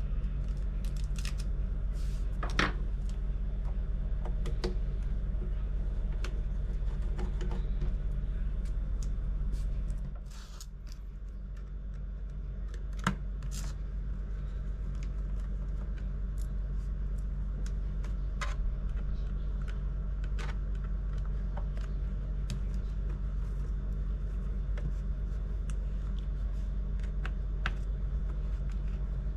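Scattered small metallic clicks and taps of a precision screwdriver and tiny screws as a 2015 MacBook Pro's bottom case is unscrewed, over a steady low hum. The hum dips briefly about ten seconds in, and the sharpest click comes a few seconds after that.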